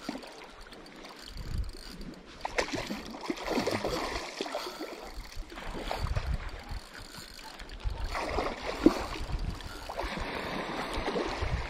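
Irregular splashing and swirling water from a big sea trout thrashing near the surface while it is played on a spinning rod, mixed with low knocks and rustles from handling the rod and reel.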